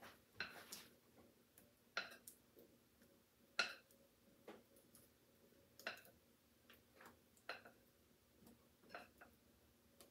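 Spatula scraping and tapping against a glass mixing bowl as cake batter is poured into pans: faint, irregular clicks and scrapes, about one every second or two.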